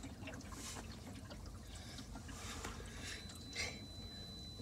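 Faint drips and trickles of rinse water running off a car's windshield and body after an automatic car wash, with scattered small ticks over a low steady rumble.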